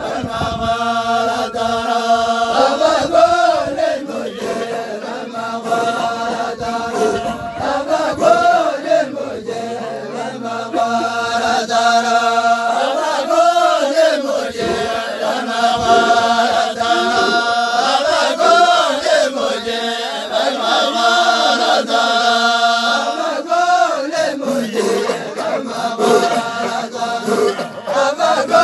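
A group of voices chanting together in unison, holding long notes that rise and fall in repeated phrases.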